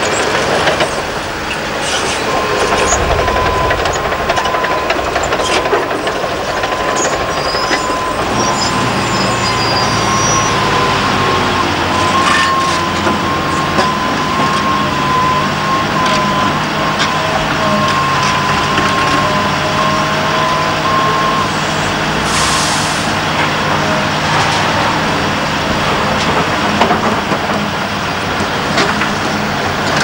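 Heavy diesel earthmoving machinery at work: the engines of a dump truck and a tracked loader running under load, a continuous mechanical din. A steady high whine runs through the first two-thirds.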